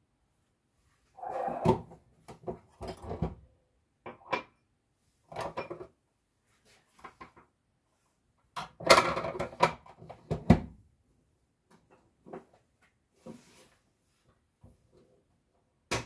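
Kitchen clatter: things being handled, knocked and set down at the counter in several irregular bursts, the busiest about nine to ten and a half seconds in, ending with one sharp click.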